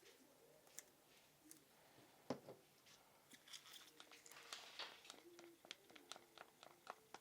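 Faint ticks and scrapes of a stir stick working mica powder into epoxy resin in a mixing cup, with one sharper knock about two seconds in and quicker light ticking from about three seconds on.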